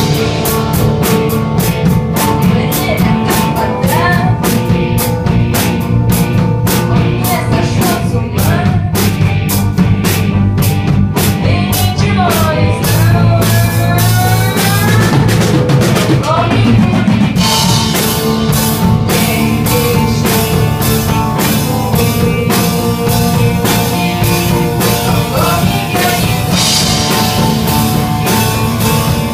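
Live rock band playing: drum kit, electric guitars and electric bass, with a girl singing into the microphone. The drums keep a steady driving beat, and the sound grows fuller and brighter about two-thirds of the way through.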